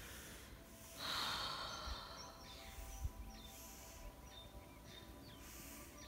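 A short breathy rush of air close to the microphone about a second in, then small birds chirping in the background, many quick, high, falling notes.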